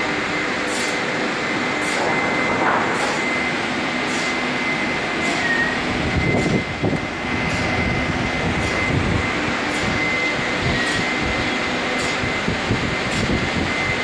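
Band sawmill machinery running steadily, with a thin high whine held throughout and short hissing pulses roughly once a second. Irregular low knocks and rumbles come in from about the middle on.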